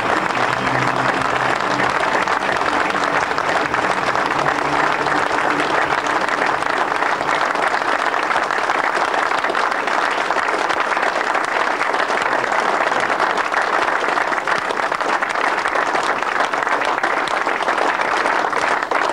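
Large audience applauding steadily and unbroken.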